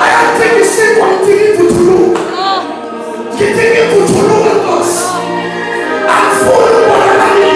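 Congregation or worship group singing a gospel song, many voices together.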